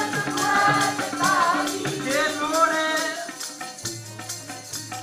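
Sikh kirtan: a singer chanting a hymn over harmonium, with tabla keeping a steady beat. The singing stops about three seconds in, and harmonium and tabla carry on, the low tabla drum sounding near the end.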